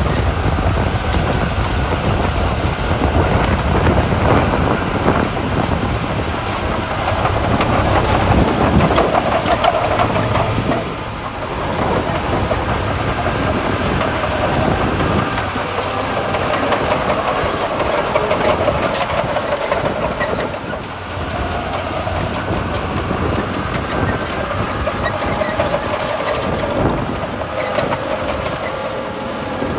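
Komatsu D41P crawler bulldozer working, its diesel engine running under load while the steel tracks clank and rattle. The sound stays loud and steady, easing off briefly twice, about a third and two thirds of the way through.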